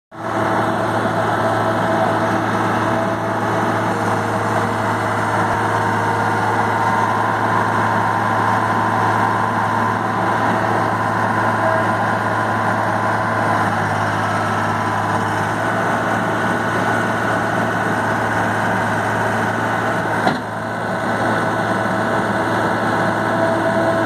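2004 John Deere 250 Series II skid steer loader's diesel engine running steadily while the machine drives and turns on gravel. A single short knock sounds about 20 seconds in.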